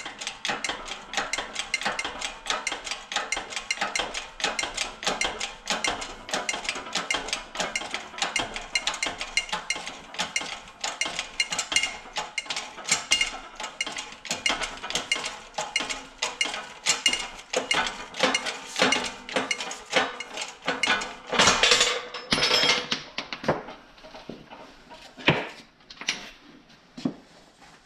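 Hand-pumped bottle jack on a shop press, with rapid metallic clicking and clinking as it presses a front wheel bearing out of its steering knuckle. Near the end come a few louder metal clanks, then the clicks thin out to a few scattered clinks.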